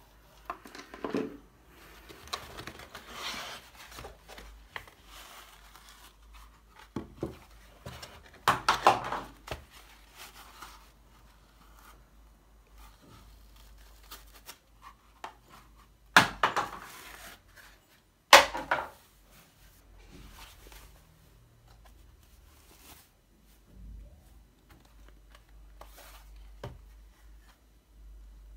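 Cardboard box and packaging being handled: irregular bursts of rustling and scraping of cardboard inserts and the laptop's plastic-like sleeve, with a few sharp knocks, the two loudest about two-thirds of the way through.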